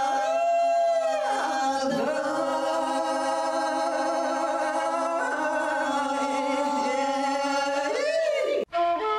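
A group of elderly women singing a traditional Bulgarian folk song unaccompanied, in long held notes: one low note stays steady while the other voices slide up and down around it. The singing cuts off abruptly near the end.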